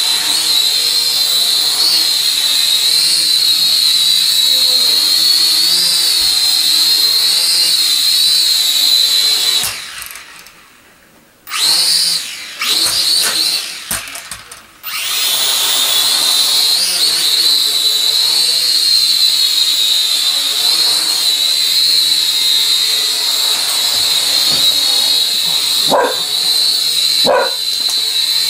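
Syma X5C toy quadcopter's four small motors and propellers whining steadily, the pitch wavering as the throttle shifts; about a third of the way through the whine drops away, comes back in short bursts and then runs steadily again. Near the end a dog barks three times.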